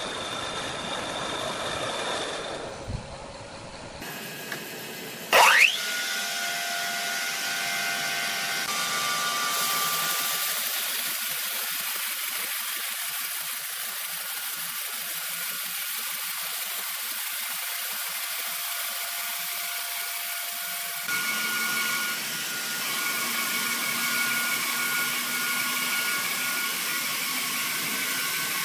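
Horizontal band sawmill running and cutting through a large hardwood log: a steady hiss of the blade in the wood over a thin whine from the motors and wheels. A brief loud rising squeal comes about five seconds in.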